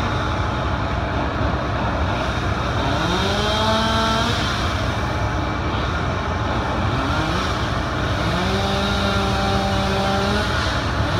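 Aerial ladder fire truck running loud and steady while its ladder is worked. Twice a whine climbs in pitch, holds for a second or two, then drops away, as the engine and hydraulics drive the ladder.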